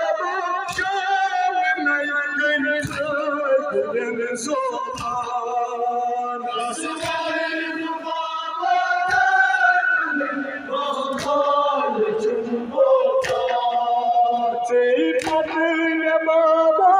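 A group of men chanting a Kashmiri noha, a Muharram mourning lament, in unison without instruments. Sharp slaps or beats fall about every one to two seconds.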